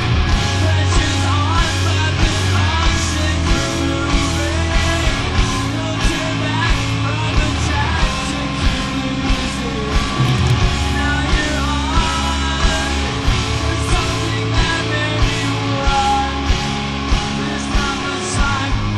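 Post-hardcore rock band playing a song: a steady drum beat under distorted electric guitars and bass, with a voice singing.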